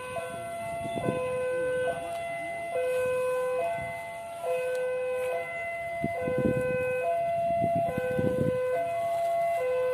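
Railway level-crossing warning alarm sounding, an electronic two-tone signal stepping between a low and a higher tone about every second. A few short low rumbles come through about a second in and twice between six and eight and a half seconds.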